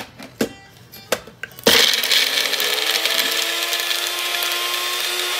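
Magic Bullet personal blender: a few clicks as the cup is pressed onto the base, then about two seconds in the motor starts and runs steadily with a slowly rising whine, blending lemon rind, lemon juice and coriander leaves into a paste.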